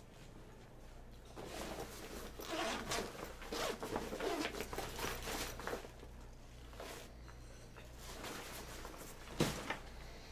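Cloth rustling and a zipper being worked as a hoodie and a fabric backpack are handled and rummaged, busiest in the first half. A short sharp knock comes near the end.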